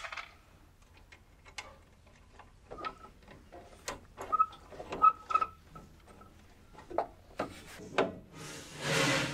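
Metal hardware and hand tools being worked at a truck's battery cable terminals while fitting a battery disconnect switch: scattered clicks and clinks with a few short ringing pings, the sharpest in the middle, and a brief louder rustling noise near the end.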